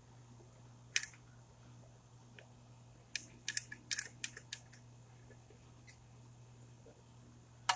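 Manual caulk gun clicking as it is worked and pulled away from a bead of silicone. There is one click about a second in, a quick run of clicks from about three to four and a half seconds, and a sharper click near the end.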